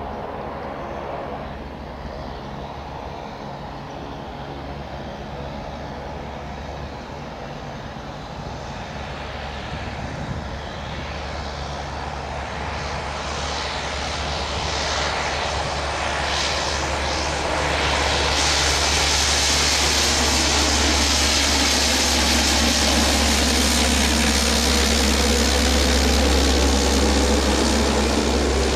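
Saab 340's twin turboprop engines and propellers running as the aircraft taxis, a steady drone with a low hum. It grows clearly louder about two-thirds of the way through as the aircraft turns and power comes up.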